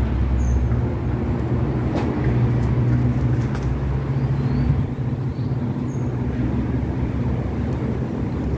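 Steady low mechanical hum, like an engine running, with a few faint clicks.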